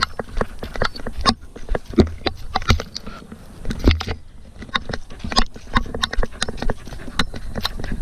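Camera strapped to a running Border Collie: irregular knocks, thumps and rustles as the harness mount jolts and the paws strike the forest floor.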